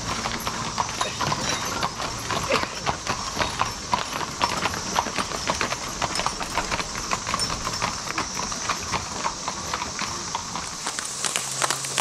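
Hooves of several horses clip-clopping in an irregular patter as riders pass, over the steady drone of a periodical cicada chorus.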